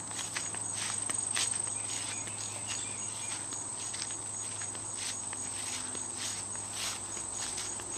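Insects chirring steadily in a high, continuous drone with a regular pulsing chirp, over footsteps and rustling through grass.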